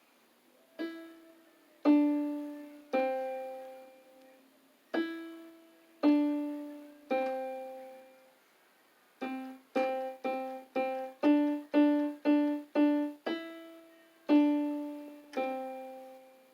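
Electronic keyboard playing single piano-like notes, each struck and left to fade. The notes come in falling groups of three, with a quicker run of about eight notes in the middle.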